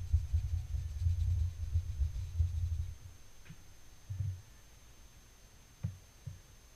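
Sponge dabbing dye onto cloth stretched over a coral stamp: a quick run of dull, muffled thumps that stops about three seconds in. A few single soft knocks follow as items are handled on the table.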